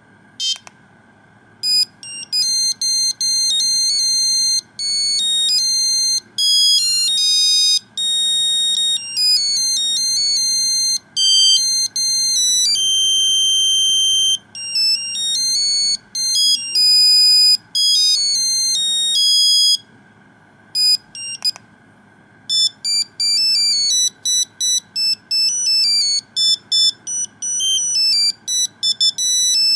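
Nokia 2100's monophonic ringtone: a quick melody of single electronic beeping notes jumping up and down in pitch. After a short break about two-thirds of the way in, a faster run of short notes follows.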